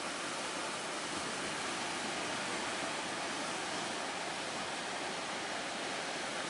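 Steady rushing noise of sea waves and wind around a fishing boat heading out in rough, windy water, even and unbroken throughout.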